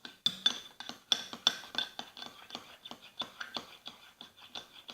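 A spoon stirring a thick mix of shampoo and salt in a bowl, clinking against the bowl about three times a second, each clink ringing briefly.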